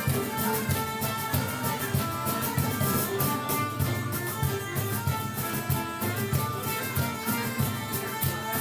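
Acoustic folk session ensemble playing a lively tune: strummed acoustic guitars and a cajón keep a steady beat while a melodica and a whistle carry the melody.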